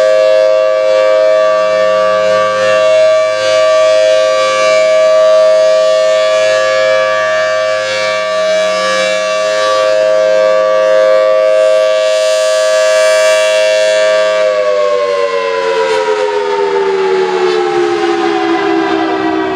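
Thunderbolt civil defense siren sounding a steady two-note chord, then, about three-quarters of the way through, beginning to wind down, its pitch falling steadily.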